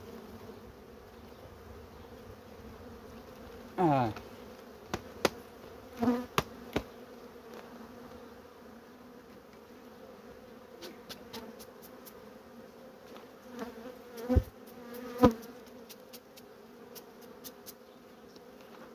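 Honeybees buzzing steadily over an open hive, with a few sharp wooden knocks and scrapes as frames are lifted and worked out of the box; the loudest is a pair of knocks late on.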